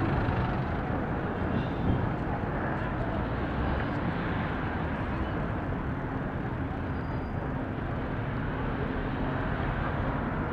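Steady rumble of wind and road noise while cycling through city street traffic, with cars close by.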